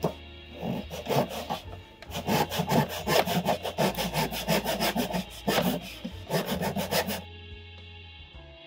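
Hand saw cutting across a 1x4 wooden board in a plastic miter box, cutting it to length: rapid back-and-forth strokes that stop about seven seconds in.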